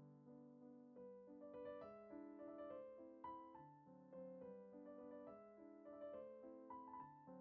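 Quiet background piano music, a gentle melody over soft chords.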